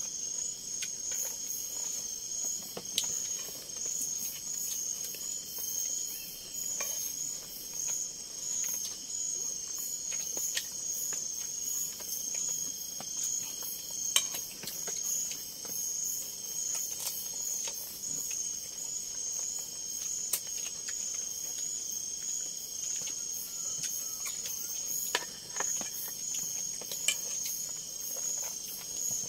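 Chorus of night insects in the forest: a high, steady pulsing trill, with scattered sharp clicks and taps.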